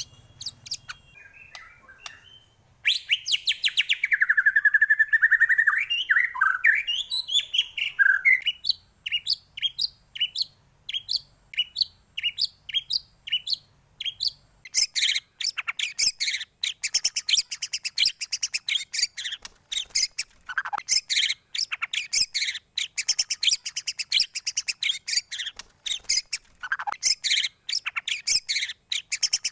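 White-rumped shama (murai batu) singing: a long, rich whistled phrase that slides up and down, then a long run of rapid repeated chattering notes.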